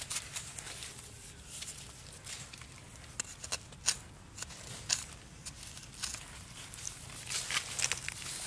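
Digging at a hole in damp soil: irregular scrapes and small crumbling clicks of earth being loosened and moved, with a few sharper scrapes about three to five seconds in.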